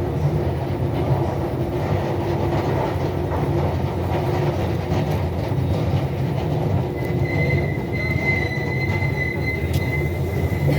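Train running through a station with a steady low rumble. About seven seconds in, a high, steady wheel squeal starts and holds.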